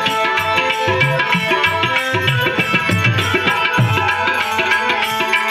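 Harmonium and tabla playing an instrumental interlude of a devotional bhajan between sung lines: held reed-organ notes over a quick tabla rhythm, with the bass drum's strokes bending in pitch.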